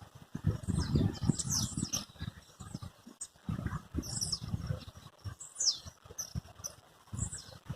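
Wild birds chirping and singing in short, high, downward-sliding notes, over a low rumbling noise that comes and goes, loudest in the first two seconds and again around four seconds in.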